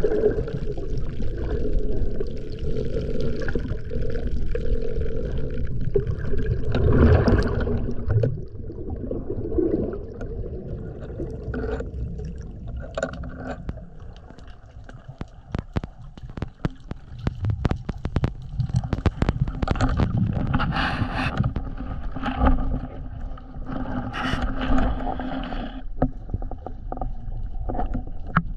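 Underwater sound of a freediver's duck-dive: water rushing and bubbling heavily past the camera for the first several seconds, loudest about seven seconds in. It then falls quieter, with many sharp clicks and ticks and a washing surge as he settles into the kelp.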